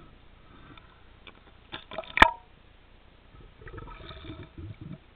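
Underwater sounds: a few sharp clicks and knocks, the loudest about two seconds in, then low gurgling and bubbling for about a second and a half near the end.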